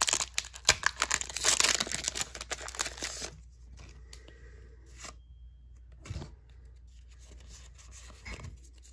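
Foil wrapper of a Pokémon TCG Evolutions booster pack being torn open, crinkling for about three seconds. After that come only faint rustles and clicks of the cards being handled.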